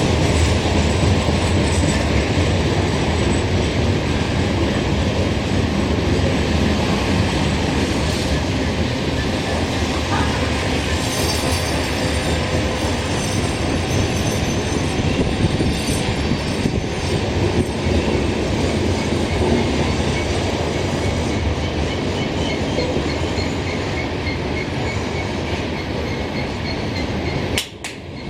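Norfolk Southern freight train rolling past, a steady loud rumble of wheels on rail with some wheel squeal. The sound drops out abruptly about a second before the end.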